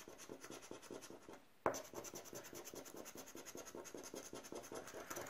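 Latex coating of a Rubbelstar scratch card being rubbed off with a flat scraper: quick, faint back-and-forth scratching strokes, broken by a short pause and a light tap about one and a half seconds in.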